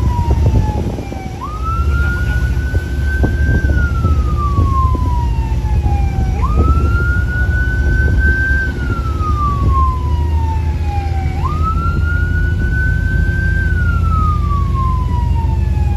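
Police patrol boat's siren wailing in a slow cycle, each wail jumping up quickly, holding high, then sliding slowly down, about every five seconds. Under it runs a loud steady low rumble of the boat's engine and water rushing past the hull at speed.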